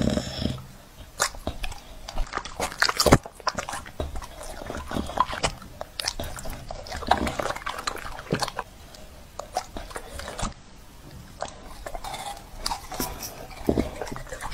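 A large bully-breed dog eating fruit from a plate, biting and chewing dragon fruit and apple with irregular wet crunches and smacking.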